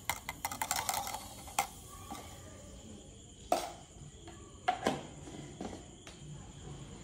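A teaspoon clinking and tapping against glasses and dishes while salt is spooned in: a quick run of light clicks in the first second and a half, then a few sharper knocks with a short ring around the middle.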